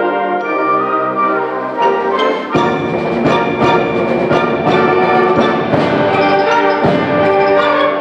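High school symphonic band playing: sustained brass and woodwind chords, then about two and a half seconds in the full band enters with deep bass and a steady rhythm of percussion hits and mallet percussion.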